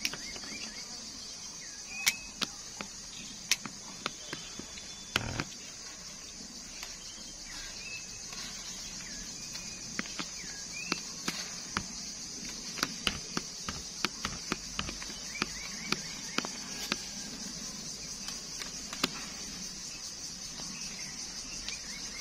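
A steady high-pitched outdoor insect chorus, with scattered sharp clicks and snaps, the loudest sounds, from pruning shears and hands working the leafy shoots of a malta orange tree, and a few faint chirps.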